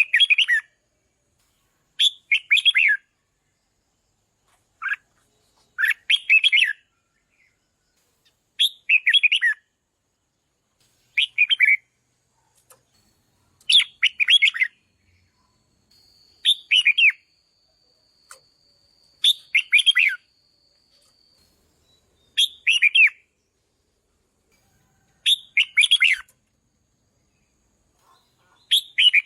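Red-whiskered bulbul singing short, loud warbled phrases, one about every two to three seconds, with silence between them.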